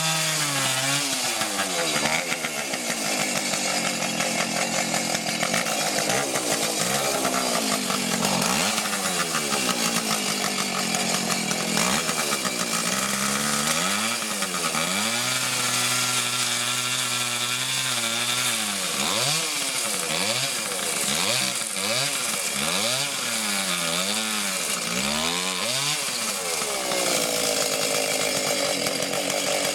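Chainsaw running and cutting through azalea bushes, its engine revving up and dropping back again and again as the cuts are made.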